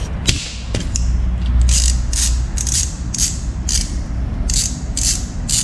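Hand ratchet clicking in repeated short bursts, about three a second from about two seconds in, as it is worked back and forth to loosen the oil filter cover bolts on a Bajaj Dominar 400 engine.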